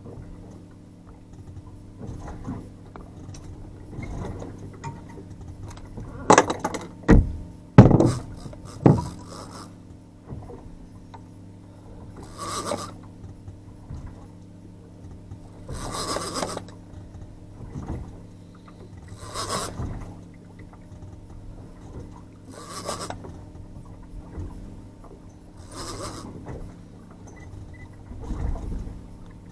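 Trolling reel being wound in short rasping bursts, about one every three and a half seconds, as the angler pumps the rod and cranks against a large hooked fish. An outboard motor hums steadily underneath, and a few loud thumps come around six to nine seconds in.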